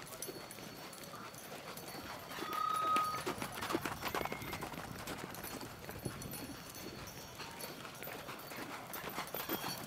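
Hoofbeats of a Chilean horse being ridden, a run of irregular soft knocks, with a brief steady high tone about two and a half seconds in.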